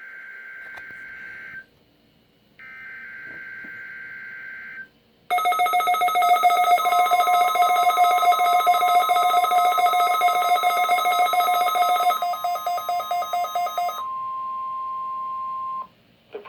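NOAA Weather Radio weekly test: the last two bursts of the SAME digital header, each a buzzy data squawk about two seconds long. Then weather radio receivers go off with loud, rapidly pulsing alert beeps over the steady 1050 Hz warning alarm tone. The tone carries on alone for the last couple of seconds and cuts off.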